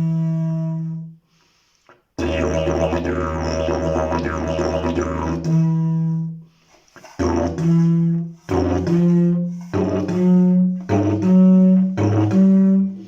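Slide didgeridoo of prickly pear fibre and fibreglass being played: a held drone that breaks off, then after a short pause a deeper drone with shifting overtones, and from about halfway a rhythmic run of short blasts alternating between the low drone and higher toots.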